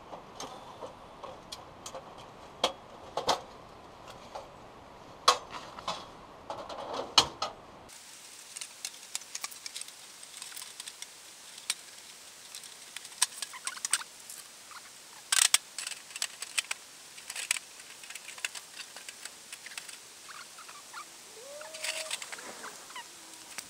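Thin stainless-steel panels of a folding camp wood stove clinking and clacking as it is unfolded, stood on its legs and its parts fitted together: irregular sharp metal clicks and knocks.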